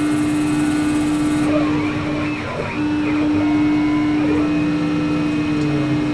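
CNC lathe turning the outer contour of a drive-shaft blank: a steady machine hum that drops out briefly about two and a half seconds in, over the noise of the cut.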